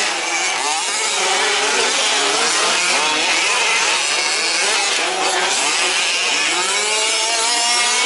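Several 1/5-scale 4WD RC race trucks' small two-stroke petrol engines revving together, their overlapping pitches rising and falling as the throttles open and close.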